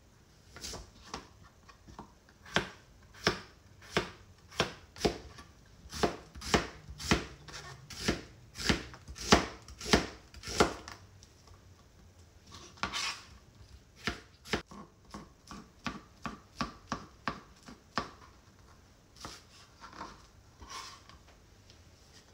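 Kitchen knife slicing an onion on a cutting board: a steady run of knife strikes on the board, about one every second or less. After a short pause about eleven seconds in, the cuts come quicker and softer.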